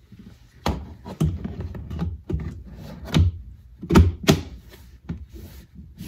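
Plastic interior trim panel of a 1986 Nissan 300ZX being handled and pressed into place by hand: a series of knocks and clicks over light rustling, the two loudest about four seconds in.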